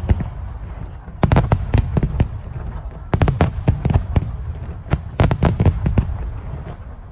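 Fireworks display going off in quick volleys of sharp bangs, three clusters about two seconds apart, over a continuous low rumble.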